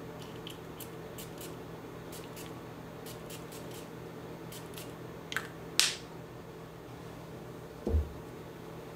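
Boss Bottled eau de parfum spray bottle's atomizer spritzing in a quick series of short, high hisses, the longest and loudest about six seconds in. A low thump near the end, over a steady room hum.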